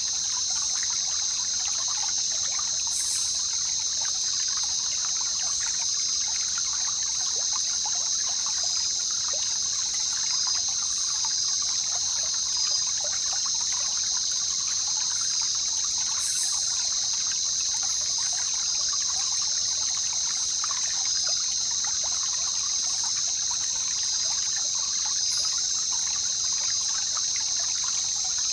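Jungle river ambience: stream water trickling and babbling steadily, under a constant high-pitched drone that is the loudest part of the sound, with a few faint brief high chirps.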